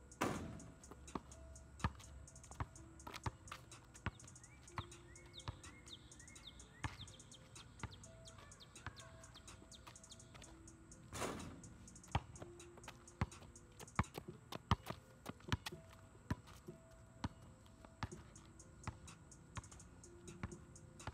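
Outdoor basketball play: a ball dribbling on pavement in sharp, irregular knocks, with two loud clanging strikes of the ball hitting the hoop, just after the start and again about 11 seconds in. Faint background music and bird chirps sit underneath.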